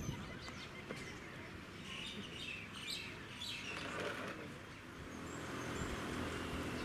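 Birds chirping in short, scattered calls over a steady outdoor background. A low steady hum joins near the end.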